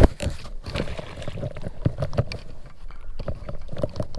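Irregular knocks and clicks of handling and gear against a fishing kayak while a hooked bass is brought alongside, with one sharp knock, the loudest, right at the start.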